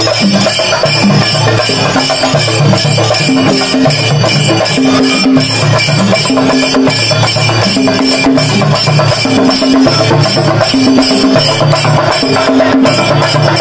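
Kerala chenda melam: an ensemble of chenda drums beating dense, fast strokes, with ilathalam cymbals ringing steadily over them. Short held low notes recur about once a second.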